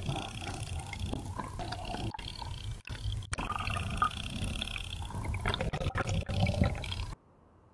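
Underwater sound of a soda-can chatterbait being retrieved: a dense low rumble of moving water with a wavering ring above it. It cuts off abruptly about seven seconds in.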